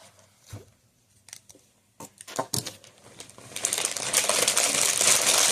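Plastic packaging of a squishy toy being handled: a few light clicks and knocks, then from about three and a half seconds in, continuous crinkling as the wrapper is worked open.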